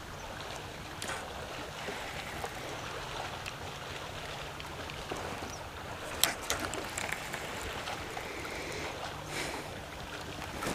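Water lapping against a bass boat's hull with wind on the microphone, steady throughout, with a few light clicks.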